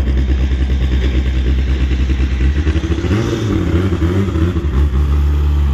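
Drag race car engines running at the strip with a deep steady rumble; about halfway through, an engine's pitch rises and falls as it is revved.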